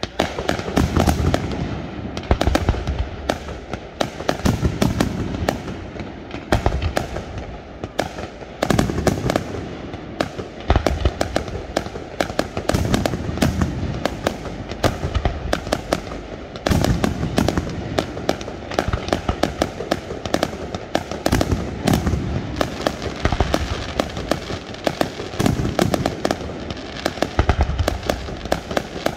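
Aerial fireworks display: shells bursting and crackling in a dense, unbroken barrage of sharp bangs, many a second, with heavier clusters of booms every couple of seconds.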